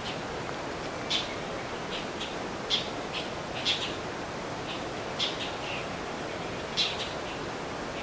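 Oriental dollarbirds giving short, harsh, grating call notes at irregular intervals, over a steady hiss. This is the nesting pair calling loudly to drive off other dollarbirds near their nest box.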